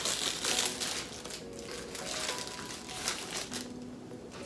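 Foil Pop-Tarts pouch crinkling as it is torn open and the pastry pulled out, busiest in the first second or so, then a few softer scattered crinkles.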